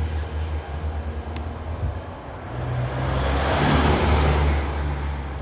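Road traffic: a motor vehicle's low engine drone with tyre and road noise, swelling as it passes about three to four seconds in.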